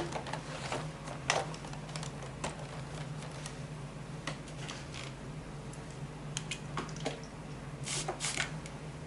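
Cotton swab rubbing and scraping on the Roomba's plastic housing: scattered light clicks and scratches at an uneven pace, over a steady low hum.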